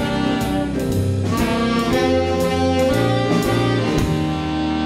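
Saxophone section with electric bass, keyboard and drum kit playing the last bars of a jazz arrangement, cymbal strokes marking the beat. About four seconds in the band lands on a held final chord.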